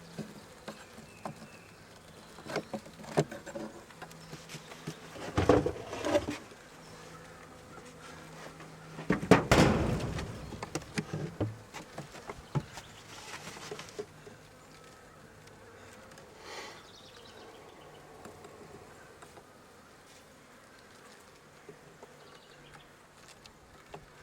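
Honey bees buzzing steadily around an open hive as frames are moved in, with several loud knocks and bumps, the loudest about nine seconds in.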